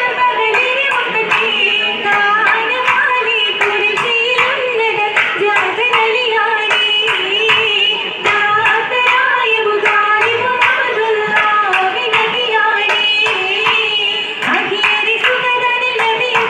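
Oppana performance: a Mappila song sung with a wavering melody over steady rhythmic handclapping, about two claps a second.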